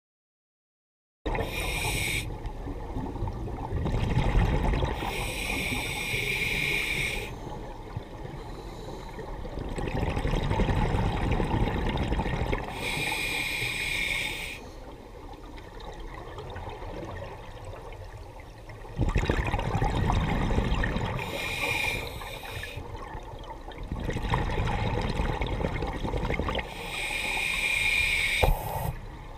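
Scuba diver breathing through a regulator underwater, starting about a second in: a hiss on each of about five inhales, and a low bubbling rush of exhaust bubbles on the exhales between them.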